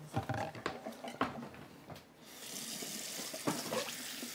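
Kitchen faucet turned on about two seconds in, water running steadily into a sink. Before it, light knocks and clatter of dishes and utensils.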